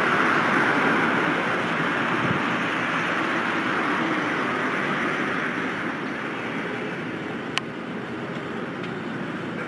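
Steady street traffic noise from a passing vehicle that fades gradually, with one sharp click about three quarters of the way through.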